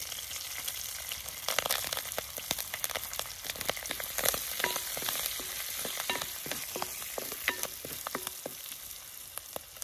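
Fresh curry leaves sizzling and crackling in hot sunflower oil with mustard seeds, ginger and garlic, with many sharp pops over the hiss. In the second half a spoon stirs the pan, clinking against the metal about twice a second.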